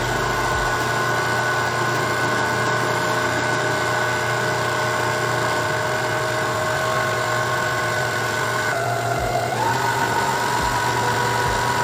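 Electric stand mixer running steadily as it whips cream, a motor whine and hum with a few steady tones; the motor's pitch rises about nine to ten seconds in.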